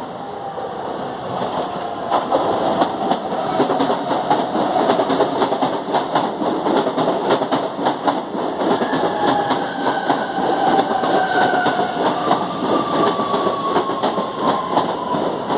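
CPTM Série 9000 Alstom electric multiple unit pulling into the station and running past close by, its wheels clicking over the rail joints. It grows louder about two seconds in, and in the second half a whine falls gently in pitch as the train slows to stop at the platform.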